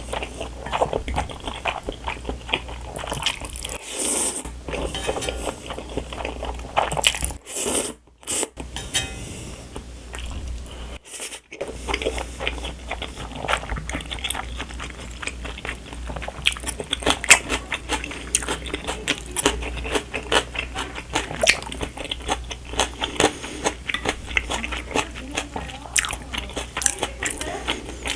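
Close-miked chewing and biting of Samyang Buldak Gonghwachun spicy stir-fried instant noodles: dense rapid mouth clicks and bites. The sound is broken by a few brief silences in the first half, then runs on without a break.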